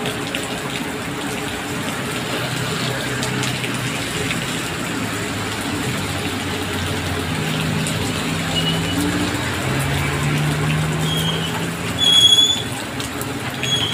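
Heavy rain hissing steadily on a wet road, with motorbikes and minibuses passing through standing water and their engines humming louder through the middle. About twelve seconds in, a short, loud high-pitched chirp.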